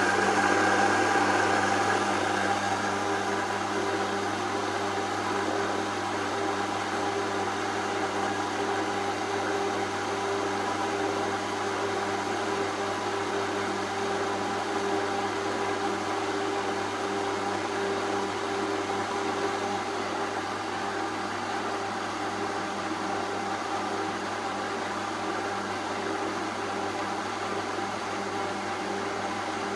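Vitamix blender motor running steadily at a low speed setting, whirring as it blends milk, chocolate syrup and ice cubes into a soft ice cream. A little louder for the first couple of seconds, then even.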